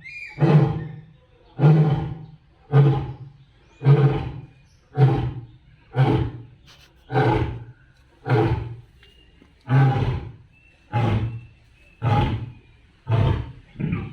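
A lion roaring: a regular series of about a dozen short roars, roughly one a second, each starting sharply and fading.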